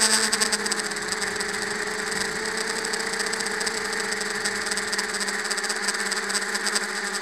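FPV drone's brushless motors and propellers whining at a steady throttle, picked up by the camera on the drone itself. The pitch dips briefly about a second in, then holds steady.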